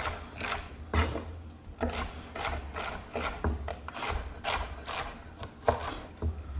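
Chef's knife slicing celery stalks on a wooden cutting board: a steady run of cuts, about two a second, each blade stroke ending in a tap on the board.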